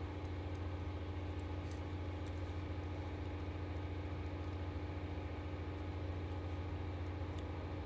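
Steady low hum with an even drone and a fainter, higher line above it, unchanged throughout. A few faint light clicks sound over it as small plastic and metal roller-assembly parts are handled.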